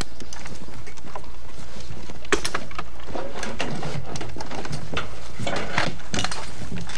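Scattered clicks, knocks and rustling as soldiers handle web gear and weapons on grass, over a steady low hum.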